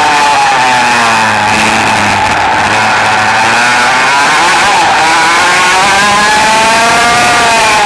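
Vortex VR98 100cc two-stroke kart engine heard close up from on board the kart. Its revs fall away over the first two seconds, stay low for a moment, then climb again, dipping briefly around the middle before rising through the latter half.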